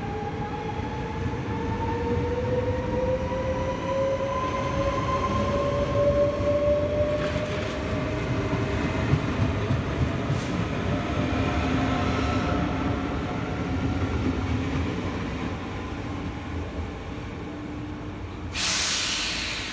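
Bombardier VIRM double-deck electric train pulling away from the platform: a motor whine that climbs slowly in pitch as it gathers speed, over a steady rolling rumble. Near the end comes a brief, loud hiss.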